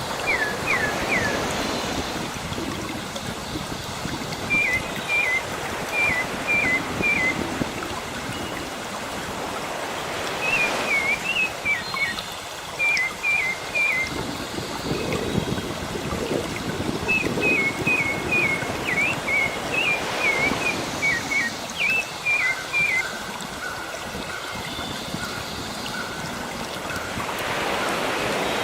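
Sea waves washing steadily, with small birds chirping in quick runs of short, repeated notes over them, several phrases in a row separated by short pauses.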